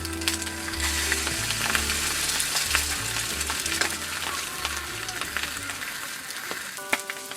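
Food frying and sizzling in a pan, with small crackles throughout, over background music that fades out near the end.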